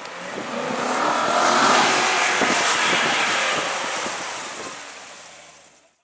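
Chevrolet Corvette C7 Stingray's 6.2-litre V8 driving past. The exhaust note swells as the car approaches, peaks about two seconds in, then fades away.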